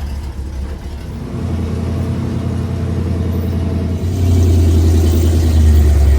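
Pickup truck's engine and drivetrain running with a low rumble as the truck pulls away on a test drive, getting louder in two steps, about a second in and again about four seconds in, as it gathers speed.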